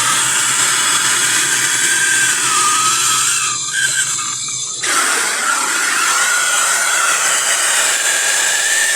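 A power tool running with a high whine that wavers in pitch, briefly easing off about four seconds in and then picking up again.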